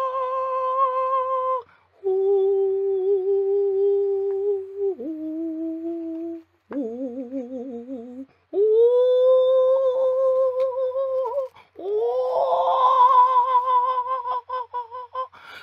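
A woman's voice singing a string of long held notes, each lasting one to three seconds with short breaks between them. The pitch slides down once around the middle, and one note wavers in a quick vibrato about seven seconds in.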